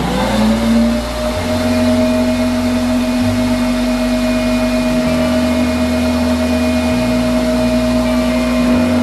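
Lamaca LA-88 commercial blender running on its low speed setting under a 10-second timer: the motor spins up with a quick rising whine, runs at a steady hum and whine, and winds down with a falling pitch as the timer runs out near the end.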